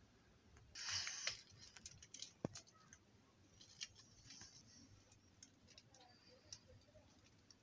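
Near silence in a small room, broken by a brief rustle about a second in and scattered faint clicks and taps.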